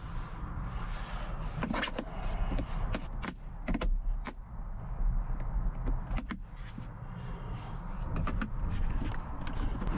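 Plastic center console trim being pried and handled with a plastic trim removal tool: a run of sharp plastic clicks, knocks and scrapes over a steady low rumble.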